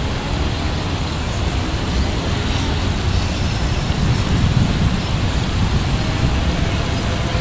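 Wind buffeting the microphone: a steady hiss with a deep, uneven low rumble.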